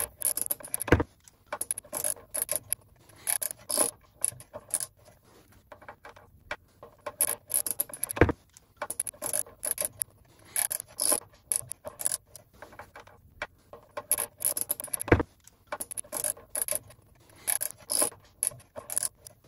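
Socket ratchet clicking in short repeated runs as steel sump bolts are worked loose, with an occasional sharper knock of the tool against the pan.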